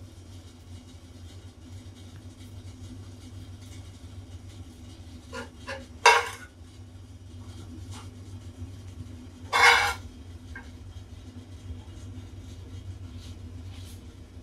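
A steel spoon scraping against a non-stick frying pan twice, about six and ten seconds in, while scooping chicken masala filling, with a few light taps just before the first scrape. A steady low hum runs underneath.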